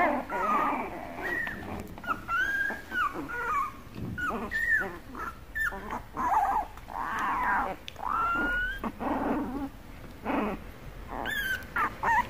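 Shiba Inu puppies play-fighting: a rapid string of short, high-pitched squeals and whines that slide up and down, mixed with small growls.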